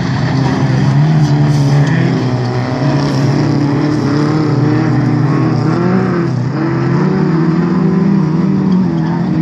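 Several hotrod race cars' engines running hard as they race round the track, their pitch rising and falling with the throttle.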